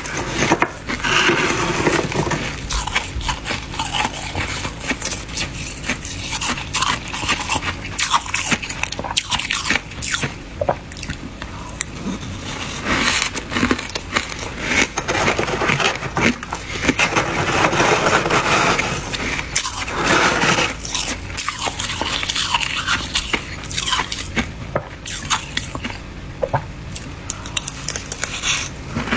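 Thick, crunchy freezer frost being scraped away: continuous grating scrapes with many sharp crackles and crunches of breaking ice.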